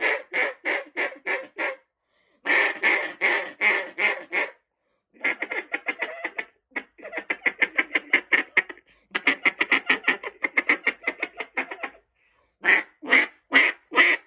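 Mondo 2B duck call blown in mallard hen sequences: a few strings of loud quacks that trail off, fast feed-chatter runs in the middle, and several single loud quacks near the end.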